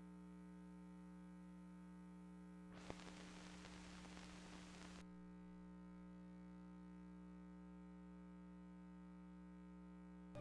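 Near silence: a faint steady electrical hum on the soundtrack, with a short spell of hiss and a single click about three seconds in.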